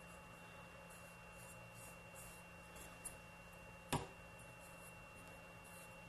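Faint scratching and brushing as espresso grounds are swept level across a portafilter basket, with one sharp click about four seconds in. A steady thin high tone and a low hum run underneath.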